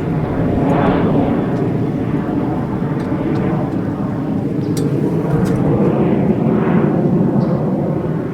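Jet aircraft flying past: a steady, loud engine roar, with a higher whine that swells and fades about three times.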